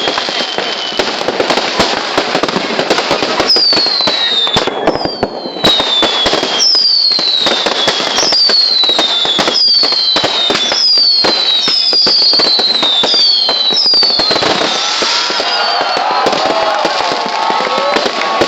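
Fireworks going off: dense crackling and popping, with a string of high whistles that each fall in pitch, about one a second, through the middle. Lower wavering tones come in near the end.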